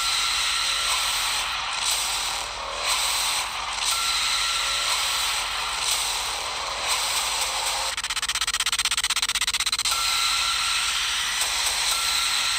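Noisy, hissing dark-ambient soundtrack with a faint thin high tone that comes and goes. A rapid, even clicking rattle over a low hum runs for about two seconds past the middle.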